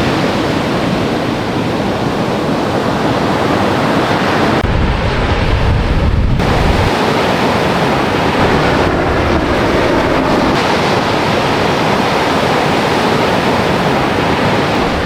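Ocean surf breaking and washing as a steady roar of noise, with wind buffeting the microphone and a heavier low rumble of wind about five seconds in.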